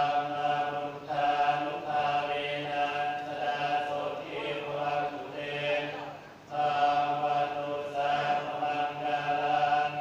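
Buddhist congregation chanting together in unison on a steady, even recitation tone, with a short pause for breath about six seconds in.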